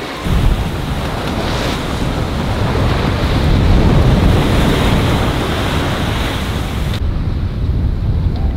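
Wind buffeting the microphone over the rush of breaking ocean waves at sea, swelling louder a few seconds in.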